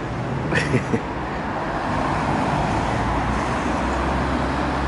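Road traffic going past, a steady rumble that grows louder about two seconds in as a vehicle passes, with a brief click just under a second in.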